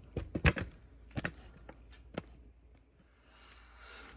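A furnace filter being pushed into its slot: a cluster of knocks and scrapes in the first half second, then single taps about a second and two seconds in, and a faint rustle near the end.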